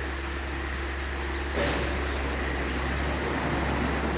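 Steady low outdoor rumble with an even hiss over it, a little louder from about a second and a half in.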